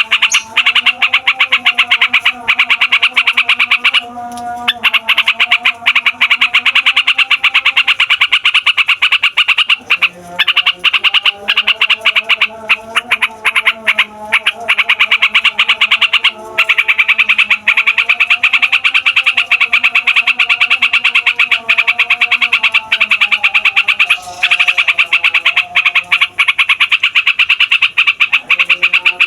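Sooty-headed bulbul (trucukan) singing a long rolling song: a continuous fast chatter with a few short breaks, over lower warbling notes.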